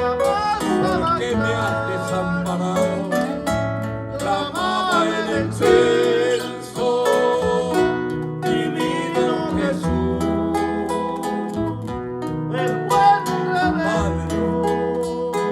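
Live Christian praise song played on plucked string instruments, with a voice singing the melody over the accompaniment.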